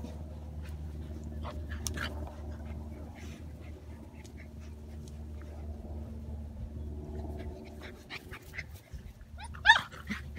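Seven-week-old golden retriever puppies at play, with faint scuffles over a steady low hum, then two short, loud, high yips near the end.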